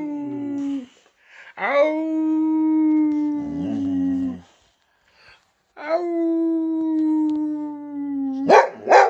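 A boxer dog and a man trading howls: a howl trails off in the first second, then come two long howls held at one steady pitch, about three seconds each, and near the end the dog breaks in with short sharp rising yelps.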